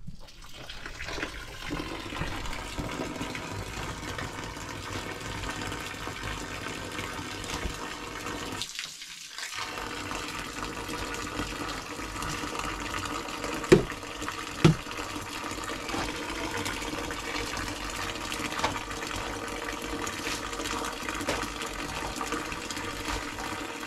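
Steady rush of running water, with two sharp knocks about fourteen seconds in; the sound drops out for about a second near the middle.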